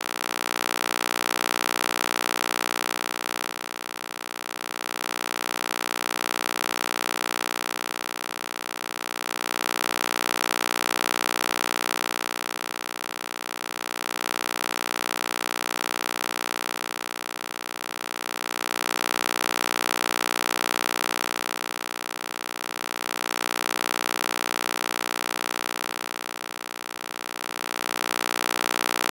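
Synthetic electronic drone for EMDR stimulation: a steady buzzing hum of many stacked tones with a hiss above it, swelling and fading about every four and a half seconds.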